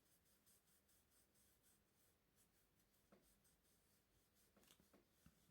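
Near silence: room tone, with a couple of faint soft clicks about three and five seconds in.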